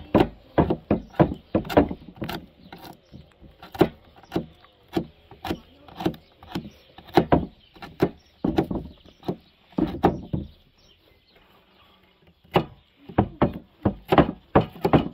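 Kitchen knife chopping walnuts on a wooden cutting board: quick sharp knocks, about three a second. They break off for about two seconds past the middle, then more knocks follow.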